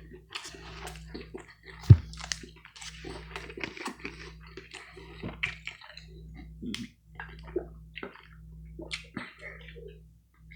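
Close-miked chewing of a Subway sandwich, with wet smacking and squishing mouth sounds and small clicks. A single sharp knock about two seconds in stands out as the loudest sound.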